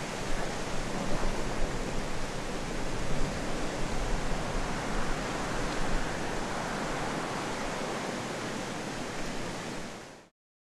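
A steady rushing noise with a low rumble and a few louder bumps, cutting off suddenly near the end.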